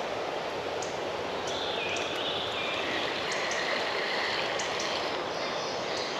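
Creek water flowing and rippling in a steady rush.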